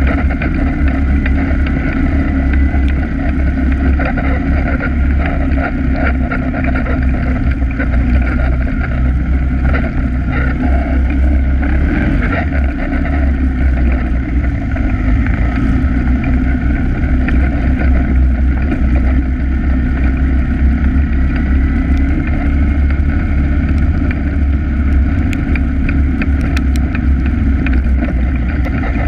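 Polaris ATV engine running steadily at trail speed, heard from on the machine, with a few sharp knocks and rattles from bumps in the dirt trail.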